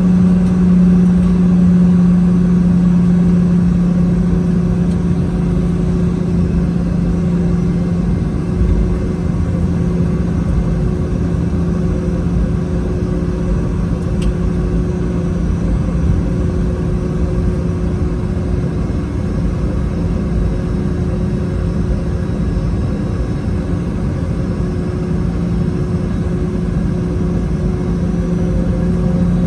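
Boeing 717's rear-mounted Rolls-Royce BR715 turbofans running steadily, heard inside the cabin as a deep, even hum over a rumble. A higher tone starts rising near the end.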